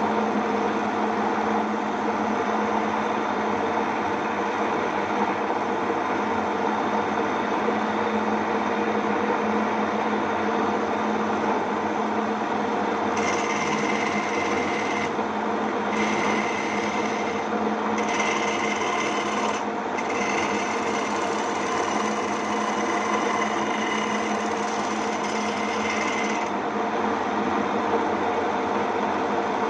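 Electric motor of a homemade wood lathe running steadily with a constant hum. From about halfway through, a cutting tool scrapes the spinning wooden lure blank in several bursts of a second or two each, adding a hiss over the hum.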